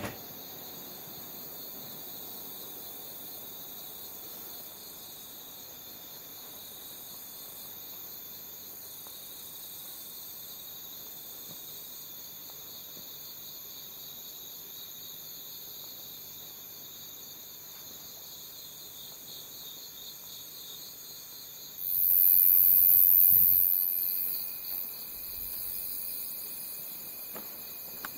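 Night chorus of crickets and other insects: a steady high-pitched trilling with a pulsing beat. About twenty-two seconds in, a much louder, very high hiss swells for about two seconds and then fades.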